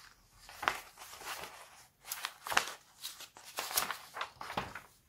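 Soft rustling with a string of short, sharp clicks from handling, scattered irregularly, the loudest a little past the middle.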